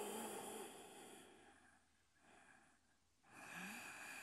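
Faint, long audible breaths from a woman holding a seated yoga twist: one breath at the start lasting about a second, then a second one beginning a little after three seconds.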